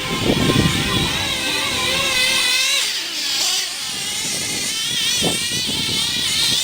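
Picco .28 nitro engine in a Mugen MBX5T truggy, with an Ofna 086 tuned pipe, running at high rpm with a high-pitched whine that wavers up and down with the throttle. The engine has a blown clutch bearing.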